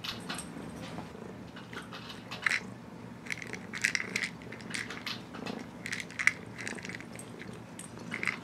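Irregular clicks and rattles of dry cat treats shaken inside a clear plastic treat-dispensing mouse toy as a cat noses and paws it, in short clusters with a few sharper knocks.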